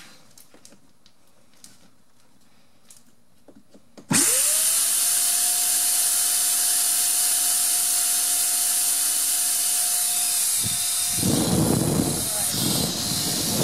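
Paint sprayer's air compressor starting up about four seconds in, its power cord back in: a whine that rises within half a second to a steady high pitch, over a loud rush of air. Before it, a few faint clicks; near the end, a rougher rushing comes and goes over the steady running.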